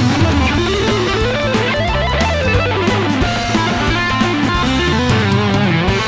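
Charvel electric guitar through a Blackstar HT Club 50 valve amp head with delay added, playing fast melodic lead runs, with bass notes and drums underneath.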